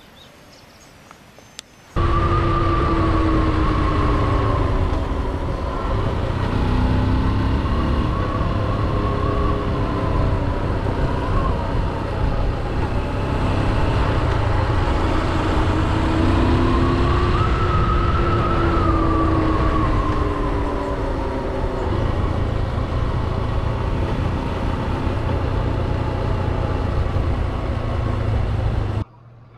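Motorcycle engine running while riding, its pitch slowly rising and falling with the revs over a heavy low rumble of wind on the microphone. It starts abruptly about two seconds in and cuts off just before the end.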